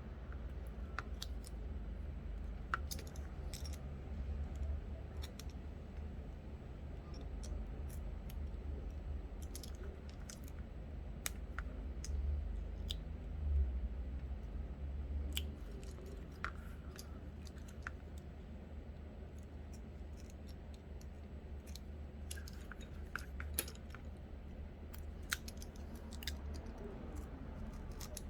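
Scattered small clicks and taps as double-sided adhesive tape and small tools are handled on a phone frame, over a steady low hum.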